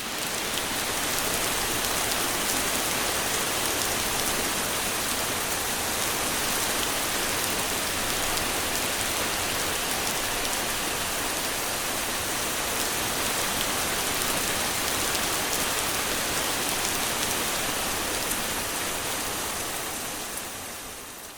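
Steady rain: an even, dense hiss with fine patter of drops, fading out near the end.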